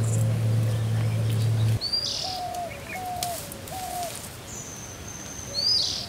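A steady low hum cuts off suddenly about two seconds in. Then birds are calling: three short, slightly falling notes about a second apart, a thin high whistle, and sharp high chirps, the loudest near the end.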